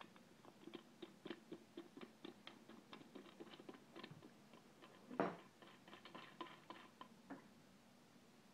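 Faint, quick light clicks and taps, several a second, with one louder knock about five seconds in.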